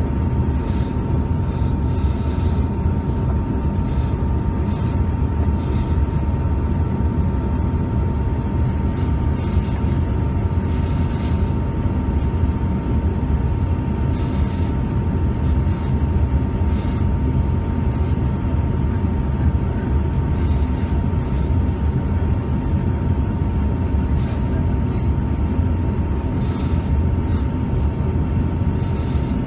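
Steady in-flight cabin noise of a Bombardier CRJ-200 jet: a deep, even rumble of engines and airflow with a thin steady whine over it. Brief hissy crackles come and go every few seconds.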